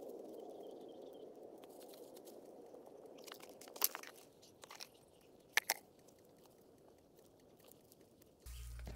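Faint crunching and rustling of dry leaf litter and soil under gloved hands working around a planting hole, with a few sharp cracks about four and five and a half seconds in. A low rumble comes in near the end.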